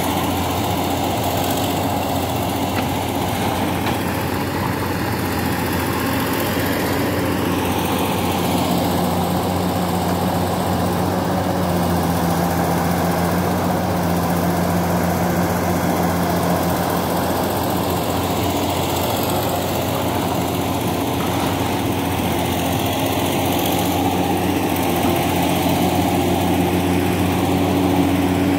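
Heavy diesel engines running steadily: a Scania V8 truck idling close by while a Komatsu excavator works alongside it.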